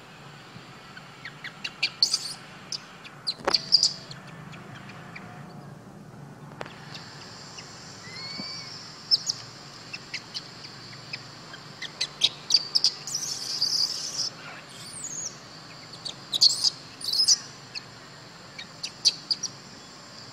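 Birds chirping in short, sharp calls, over a steady high-pitched insect buzz that grows stronger about a third of the way through.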